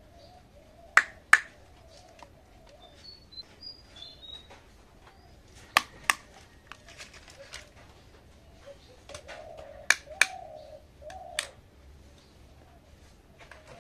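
Small plastic toy dishes clicking as they are set down: a toy cup onto its saucer, a plate and a plastic ice lolly. The sharp clicks come in close pairs three times, with one more near the end.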